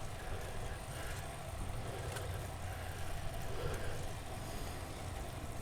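Steady low rumble of a bicycle ride, with a cyclist's hard breathing faintly over it.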